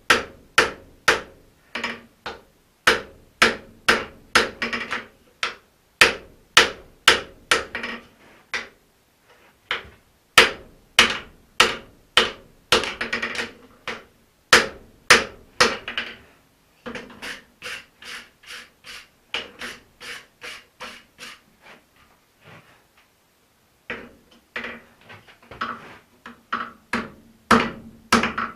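Hand hammer striking a red-hot axe head on an anvil while it is forged to final shape, about two blows a second, each leaving a short ring from the anvil. The blows grow lighter after the middle, pause briefly, then come hard again near the end.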